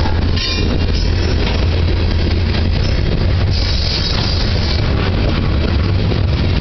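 Covered hopper cars of a grain train rolling slowly past at close range: steel wheels rumbling loudly on the rails, with brief high-pitched squeals a few times, the longest about four seconds in.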